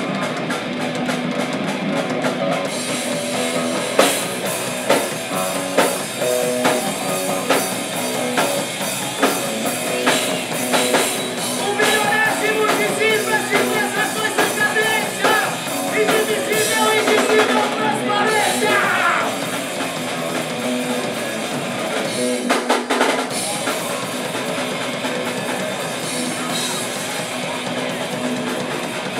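Live hardcore punk band playing loud and fast: pounding drum kit, distorted electric guitars and bass, with shouted vocals. About 23 seconds in there is a short break as one song ends, then the band goes straight into the next song.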